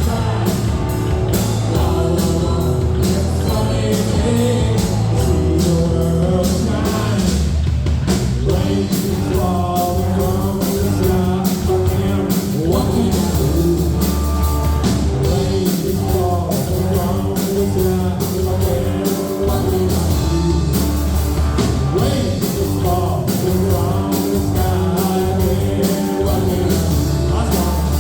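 Rock song with singing, electric guitar and a steady drum beat.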